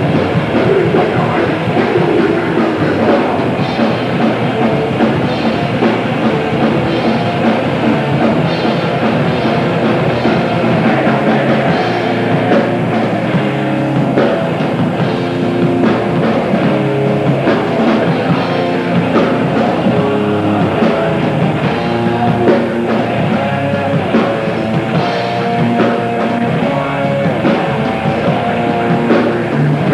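Grindcore band playing live: heavily distorted guitars and bass churning out riffs over fast, dense drumming, in a loud, raw club recording.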